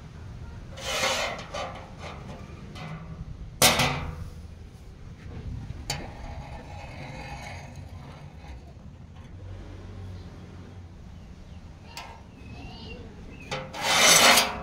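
Flat steel bar and steel ruler handled on a metal work table: a scrape about a second in, a sharp metallic clank about four seconds in, a couple of light clicks, and a louder scraping rush near the end, over a steady low hum.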